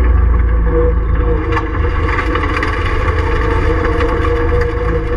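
Ford Fiesta Mk7 rallycross car's engine running at fairly steady revs, heard from inside the stripped, roll-caged cabin as a deep drone with a steady tone over it. The deepest part of the drone eases a little over a second in.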